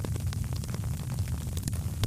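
Wood fire in a fireplace crackling: scattered small, sharp crackles and pops over a steady low rumble of the burning fire.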